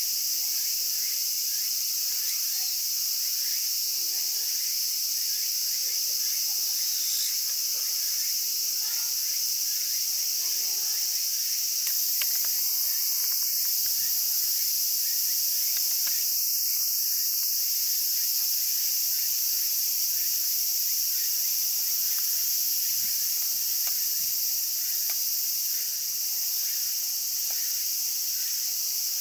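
A dense insect chorus: a steady, high-pitched buzzing.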